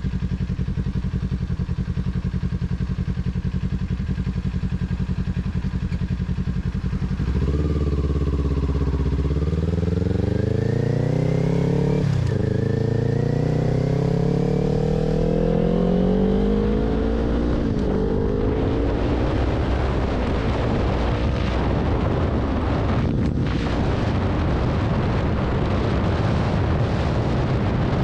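Kawasaki Ninja 400 parallel-twin with a Two Brothers aftermarket exhaust idling steadily, then pulling away about seven seconds in and accelerating through the gears: the pitch climbs, drops at each upshift about five and eleven seconds after setting off, and climbs again. Wind noise on the helmet microphone builds as speed rises.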